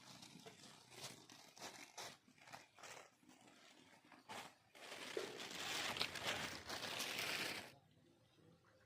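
Crinkling and rustling of handled material, scattered clicks and rustles at first, then a louder continuous rustle for a few seconds from about five seconds in that stops suddenly.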